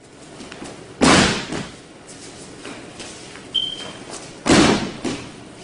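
Two heavy thuds of a judoka being thrown and landing on the mat in a breakfall, about three and a half seconds apart, each with a short echo.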